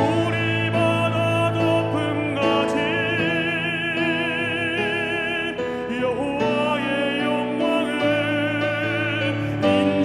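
Music: a worship song sung over keyboard accompaniment, with a long held note sung with wide vibrato about three seconds in.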